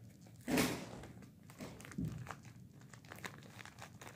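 Plastic crinkling in the hands: a brief rustle about half a second in, the loudest, and a fainter one about two seconds in, with small handling clicks between.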